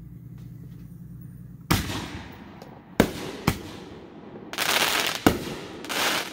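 Aerial firework shells bursting: four sharp bangs, two of them about half a second apart, with two short bursts of hiss near the end.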